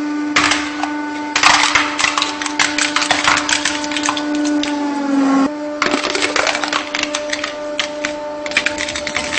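Hydraulic press crushing a plastic toy Caterpillar road roller: dense cracking and snapping of plastic over the steady hum of the press's motor. About halfway the hum sags in pitch and breaks off briefly, then crunching and crackling of a second object being crushed follows.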